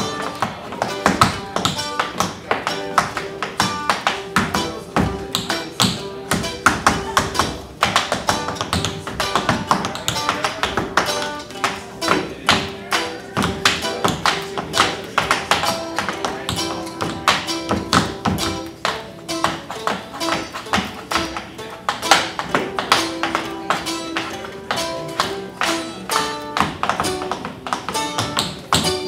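Tap shoes striking a hard floor in quick, dense runs of clicks throughout, over the instrumental music of a guitar-led song.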